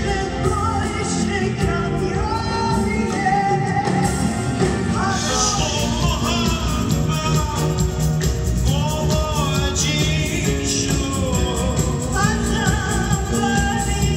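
Live band music with a female and a male singer, backed by electric guitar, drums and piano.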